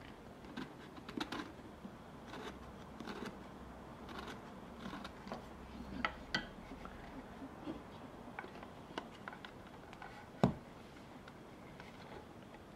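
Hand carving tool cutting and scraping a wooden skull in small, irregular strokes, soft clicks and scrapes, with one sharper knock about ten seconds in.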